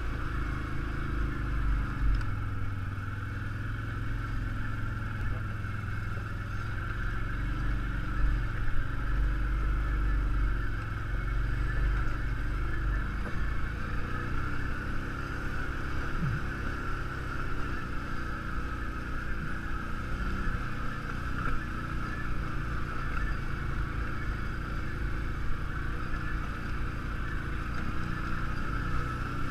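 ATV engine running steadily at low speed while the machine crawls up a rough, rocky dirt trail, with a few knocks as it bounces over rocks.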